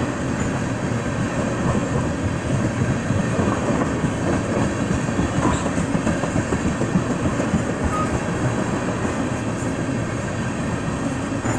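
A freight train of tank cars rolling steadily past, its steel wheels running on the rails.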